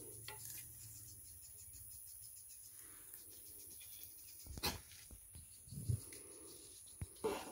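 Footsteps swishing through tall dry grass and brush, with a few sharp knocks and rustles about halfway through and near the end, over a steady high insect hum.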